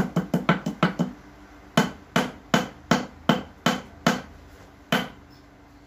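Repeated hammer blows on a USB Type-C charger lying on a tile floor. The first second has rapid blows, about five a second. After a short pause come slower, evenly spaced blows, two or three a second, which stop near the end.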